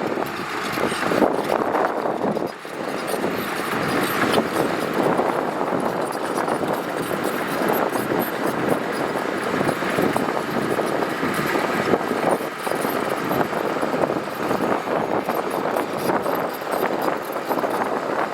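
Heavy earthmoving machinery working gravel: a steady, dense mix of diesel engine noise and gravel, dipping briefly about two and a half seconds in.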